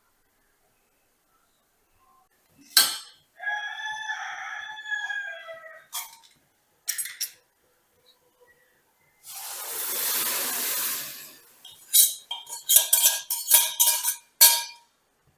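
A sharp click, then a rooster crowing once for about two and a half seconds, falling at the end. About two seconds of hiss follows, then a rapid run of loud clinks of glass and metal dishes being handled.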